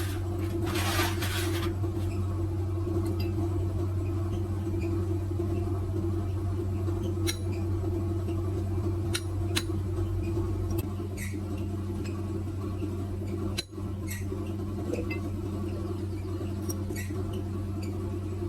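Light clicks and clinks of metal tools and small parts, spaced a second or two apart, over a steady low hum. Two short hisses come right at the start.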